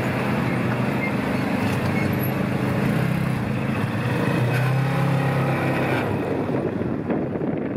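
Quad bike (ATV) engine running steadily while riding, its note strongest about halfway through and turning rougher near the end.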